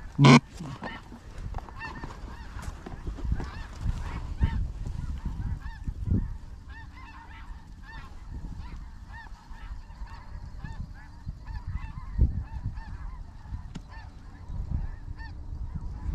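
A large flock of geese honking, many overlapping calls going on continuously. A single short, very loud burst comes about a third of a second in.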